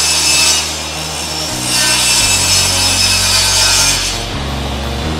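HiKOKI table saw ripping a perforated hardboard sheet. The blade cuts noisily twice: a short stretch at the start, then about two and a half seconds more after a brief lull. The cutting noise fades near the end.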